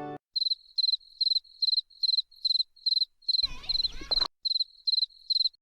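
Cricket chirping in even, high-pitched pulses, about two chirps a second, as the lullaby music ends at the start. A brief wavering sound with a low rumble cuts in for about a second past the middle, then stops abruptly.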